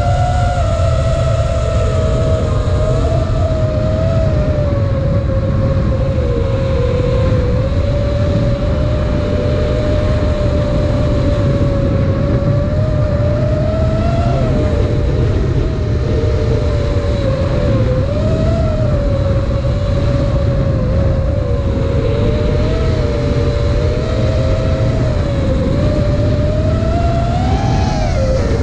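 Motors of a 5-inch FPV quadcopter whining, the pitch wavering up and down as the throttle changes, with a brief rise near the end before it drops. Heavy wind rumble buffets the onboard camera's microphone.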